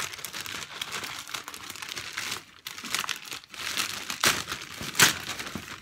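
A plastic courier mailer bag crinkling and tearing as it is pulled open by hand, in irregular rustling bursts, with the loudest rips about four and five seconds in.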